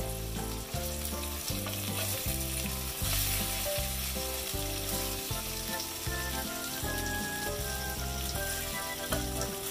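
Chicken pieces sizzling steadily as they pan-fry in hot oil, stirred and turned over with a plastic spoon, over background music.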